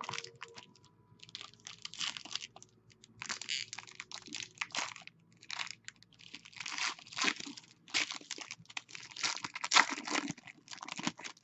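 Hockey trading card pack being torn open and its wrapper crinkled, in a series of irregular rustling bursts, the loudest near the end.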